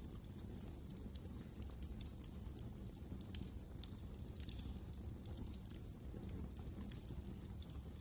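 Wood fire crackling: frequent, irregular small pops and snaps over a steady low rumble.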